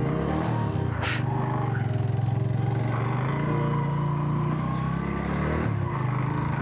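Motorcycle engine running under way, its pitch climbing as it pulls away, easing off briefly near the end and then picking up again. A short hiss about a second in.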